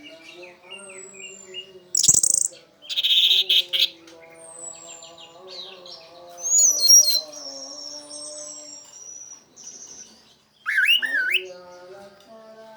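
Orange-headed thrush (anis merah) in full, excited song: a varied run of whistles, rapid buzzy phrases and loud sharp notes, delivered in bursts several times.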